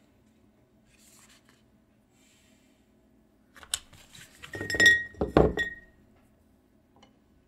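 A short cluster of clicks and clinks, some against glass, two of them ringing briefly, about four to six seconds in.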